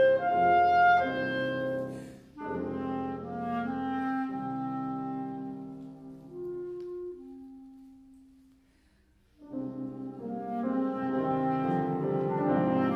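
Clarinet and grand piano playing a classical duo sonata. A falling phrase dies away to a short pause about eight to nine seconds in, then both instruments come back in together.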